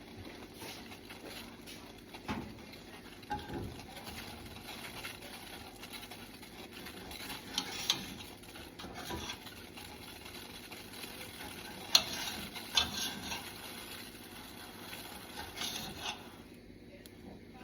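Kitchen utensils being handled during cooking: scattered light clicks, taps and scrapes, with one sharp click about twelve seconds in.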